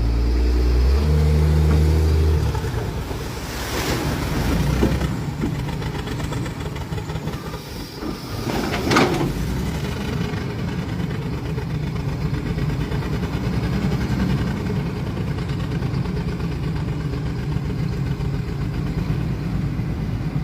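A vehicle's engine running steadily, with a brief loud rush of noise about nine seconds in.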